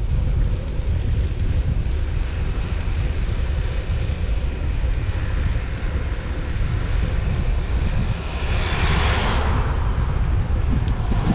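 Wind rumbling on the camera microphone while riding, as a car approaches in the oncoming lane; its tyre and engine noise swells steadily to a peak near the end and then drops away as it passes.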